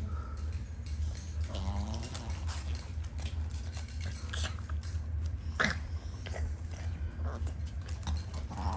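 Small dog licking and smacking its lips after spitting up, with a short throaty sound about two seconds in and scattered clicks, over a steady low hum.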